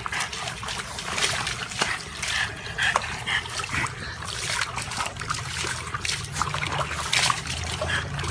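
Water splashing and sloshing in a plastic tub as a French bulldog sitting in it paddles about, in a quick, irregular run of splashes.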